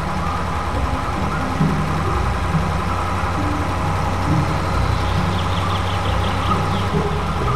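Steady engine-running sound of a wheel loader, a low hum with a slightly uneven pulse. About five seconds in, a brief run of quick high chirps joins it.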